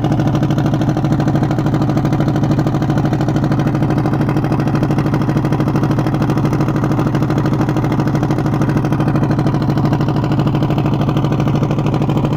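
Engine of a small tracked all-terrain carrier running loud and close at a steady speed, with a fast even flutter; it starts and cuts off suddenly.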